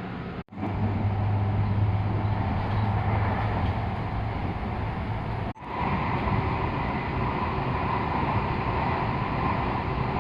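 Steady cabin noise inside a Tobu 50050 series electric train car, with a low hum for the first few seconds. The sound cuts out for a moment twice, about half a second in and again about five and a half seconds in; after the second break the noise is higher-pitched.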